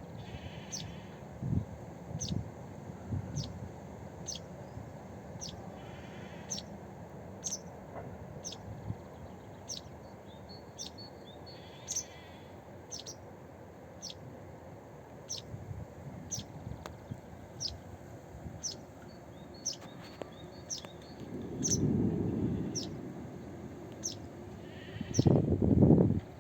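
A bird repeating a short, high, falling chirp a little more than once a second, over a steady background hiss, with louder low sounds rising twice near the end.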